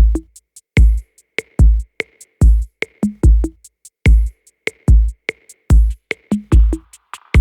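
Background electronic music with a steady drum-machine beat: a deep kick about every 0.8 seconds with lighter clicks between.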